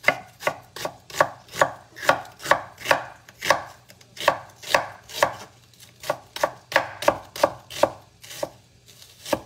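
Chef's knife slicing an onion on a wooden cutting board: a steady run of sharp chopping strokes, about two and a half a second, that stops near the end.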